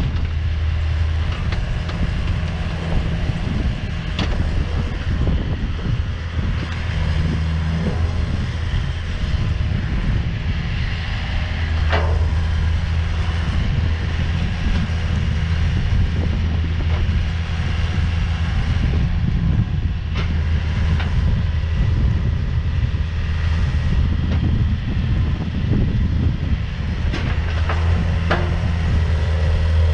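Diesel engine of a 2008 Neuson 50Z3 RD mini excavator running steadily with a low hum, with a few short knocks, the loudest about twelve seconds in and a pair near the end.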